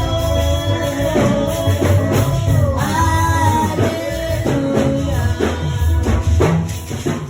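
Yoruba gospel praise music: a voice or lead melody carries the tune over a steady beat of drums and bass, with percussion strokes in time.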